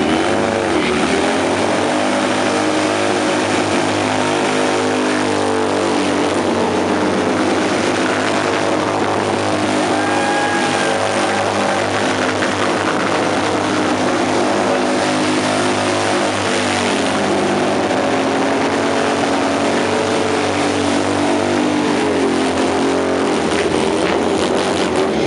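Harley-Davidson Sportster V-twin held at high revs through a long burnout, its rear tyre spinning against the pavement in a steady loud drone with a hiss of tyre noise.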